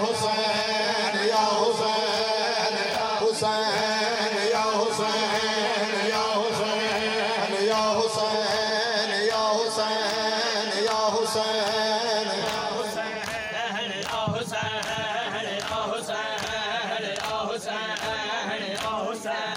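A crowd of men chanting a noha in unison, with the sharp slaps of matam chest-beating keeping a steady beat that grows clearer in the second half.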